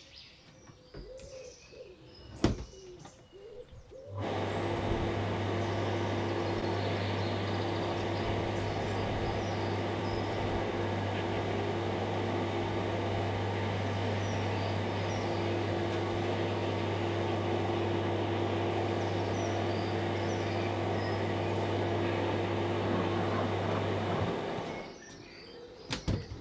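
Powder coating booth and spray gun running: a steady electric motor hum under a hiss of air as powder is sprayed. It starts abruptly about four seconds in and cuts off near the end. Birds chirp faintly before and after.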